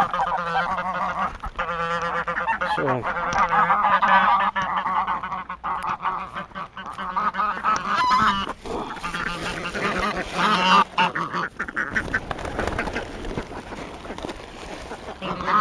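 A flock of domestic geese honking over and over, calls overlapping, as they crowd in to be fed.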